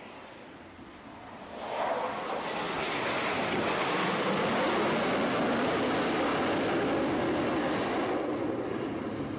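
Aircraft engine with a thin high whine; about two seconds in, a loud roar builds quickly and holds steady.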